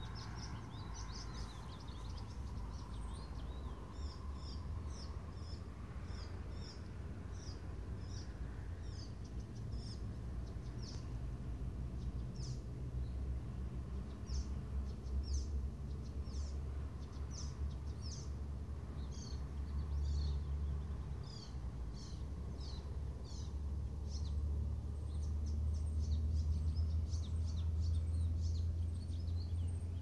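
Several small songbirds singing in many voices: short, high chirps and quick runs of notes throughout. Beneath them runs a steady low rumble that grows louder in the second half and is the loudest sound.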